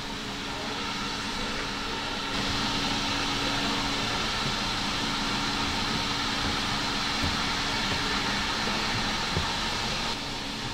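Steam locomotive standing with a steady hiss of steam over a low, even hum. The hiss gets louder about two seconds in and drops back near the end.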